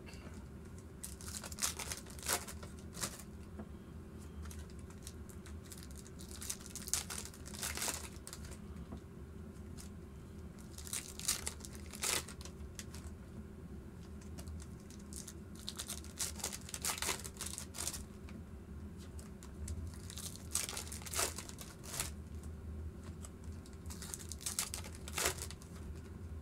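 Wrappers of 2014 Panini Prizm football card packs being torn open and crinkled. The crackling comes in short clusters every few seconds over a steady low hum.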